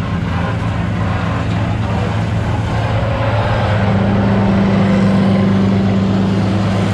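Sampo plot combine harvester running at work, a loud steady engine hum over the rush of the threshing machinery. It grows a little louder about four seconds in.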